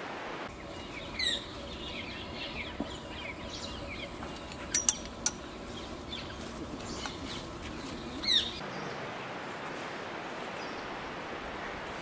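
Parakeet calls: a loud screech about a second in and another about eight seconds in, with softer, quick chattering calls between them and a few sharp clicks near the middle. The calls stop about eight and a half seconds in, leaving a steady background hiss.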